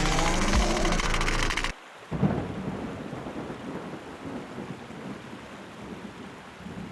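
Cartoon music that cuts off abruptly, then after a short gap a low rumble of thunder followed by a steady hiss of rain.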